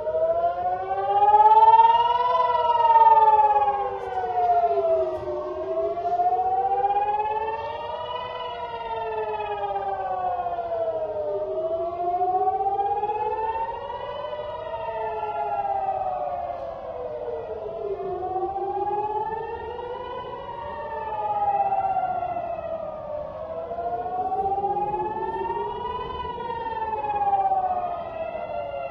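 Civil-defence air-raid siren wailing, its pitch rising and falling about every six seconds. It sounds as a warning of an incoming rocket attack.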